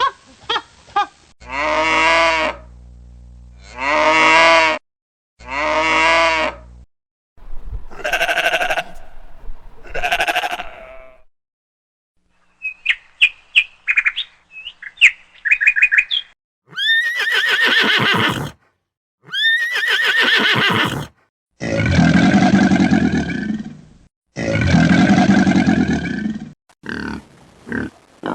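A series of different recorded animal calls, mostly farm animals, played one after another. There are about ten separate pitched calls, each a second or two long with short gaps between, and a run of short chirps near the middle.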